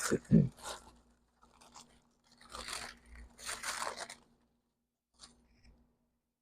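Paper sandwich wrapper being unfolded and torn open by hand, crinkling in a few separate bursts.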